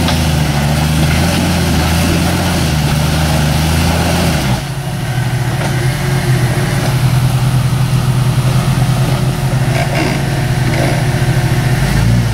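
Lifted 4x4 SUV's engine running at low revs as it crawls over rocks. About four and a half seconds in the engine note dips and changes pitch, then holds steady, picking up slightly near the end.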